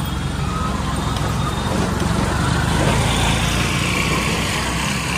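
Motor vehicle driving on a road: a steady engine and road rumble.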